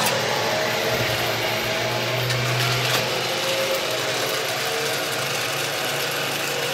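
Steady mechanical whirring of a zip line trolley's pulleys running along the steel cable, with a low hum that swells briefly two to three seconds in.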